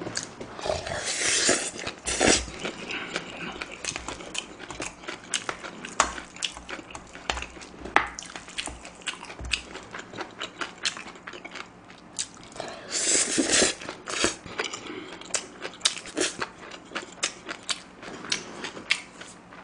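Close-miked eating sounds from a person eating spicy bibimbap: chewing and mouth smacks with many short wet clicks. Two longer noisy bursts come about a second in and again around thirteen seconds in.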